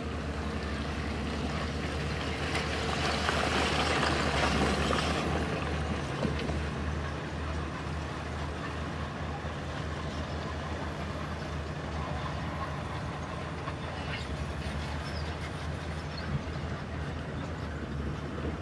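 Heavy diesel earthmoving machinery running steadily with a deep, even engine hum. It swells louder for a few seconds near the start, then settles back.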